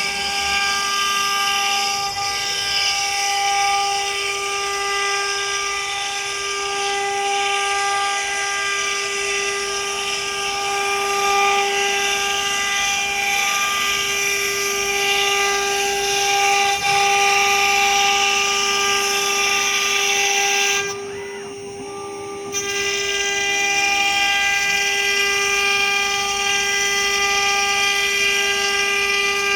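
AKM2040 CNC wood router spindle running with a steady high whine over a hiss. About three quarters of the way through, the sound drops away for a moment, then resumes.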